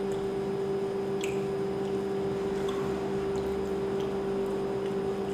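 Steady electrical or machine hum of room tone with a couple of faint small clicks.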